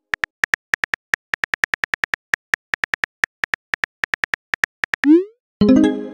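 Simulated phone keyboard clicks tapping out a text message, evenly spaced at about four or five a second, stopping near the five-second mark. A quick rising swoosh follows as the message is sent, then a ringing pitched tone that fades away.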